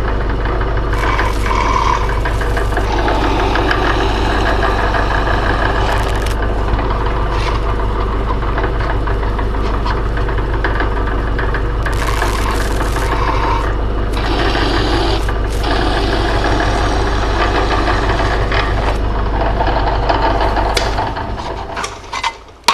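Belt-driven benchtop drill press running steadily while a 9/64-inch twist bit drills through thin sheet metal held by hand. Bursts of cutting noise come and go as the bit bites through each hole. The motor is switched off near the end and runs down.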